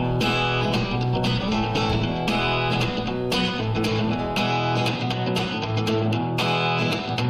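Background music: a strummed guitar with a steady rhythm, without vocals.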